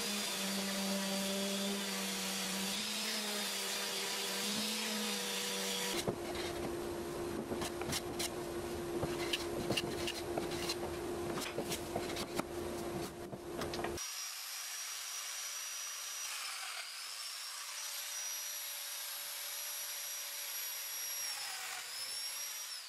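Woodworking tools in three stretches. First a steady motor drone for about six seconds, then a lower hum under many quick scraping strokes of a hand plane on the timber. From about fourteen seconds comes the high whine of a Festool Domino joiner, dipping in pitch twice as it plunges into the wood.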